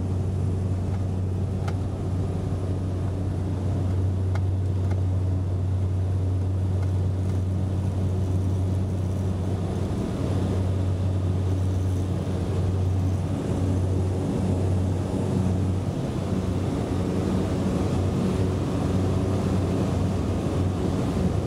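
Cabin noise of a small propeller plane taking off and climbing: the engine and propeller drone loud and steady, with a strong deep note. About two-thirds of the way through the deep note wavers and drops away, leaving a slightly higher hum.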